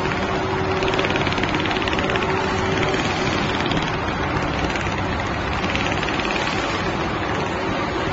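Sokee 360-degree computerised template sewing machine stitching, a fast, even needle rattle as the carriage drives the template under the head. The rattle comes and goes as the head traces the pattern, over the steady run of the machine's motors.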